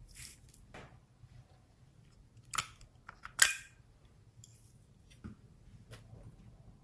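A few sharp clicks and taps of small plastic containers being handled and set down on a table, the two loudest close together near the middle.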